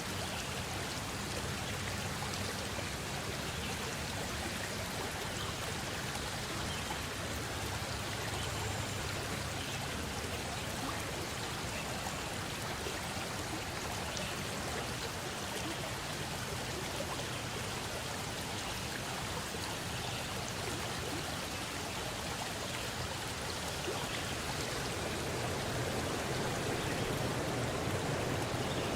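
Stream water flowing in a steady rush, growing a little louder near the end.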